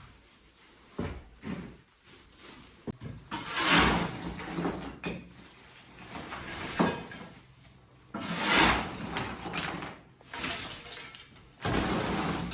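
Interior demolition of plaster and ceiling: scattered knocks and thuds, with three louder crashing rushes of falling debris about 4, 8.5 and 12 seconds in, each lasting about a second.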